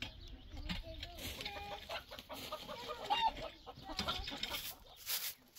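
Chickens clucking in short calls, with a few scratchy strokes of a straw hand broom near the end.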